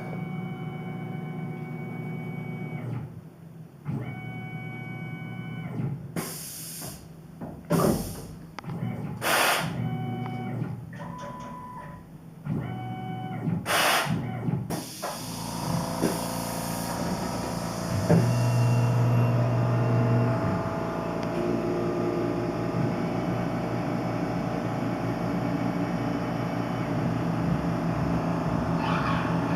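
Tormach PCNC 1100 CNC mill working MIC6 aluminium plate: a motor whine that steps from pitch to pitch, with several brief hissing bursts in the first half. From about halfway the machine runs louder and steadier with a strong low hum.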